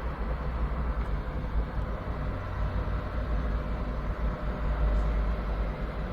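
Cooling fans of a small PC case running steadily while its Xeon E3-1245 v3 processor is under a full-load FPU stress test: a constant airy hiss over a low rumble, with a few faint steady tones.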